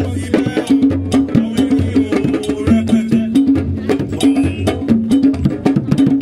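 Aztec ceremonial drumming: pitched drum strokes in a steady, driving rhythm with deeper beats under them, overlaid by many sharp, dry clicking percussion strokes.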